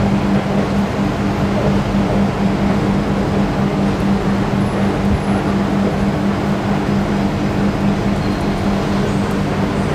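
Steady ambience of an elevated MRT station platform: a constant low hum over an even rushing noise, with no train passing.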